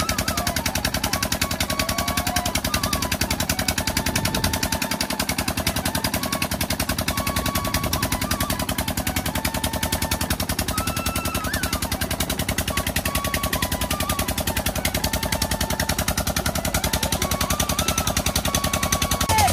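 A pump engine running steadily with a rapid, even chugging knock, with a faint wandering melody over it.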